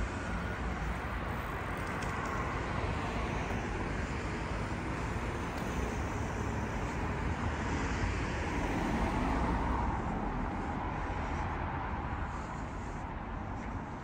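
Town street traffic noise: cars going by on the road, swelling about two-thirds of the way through and easing off near the end.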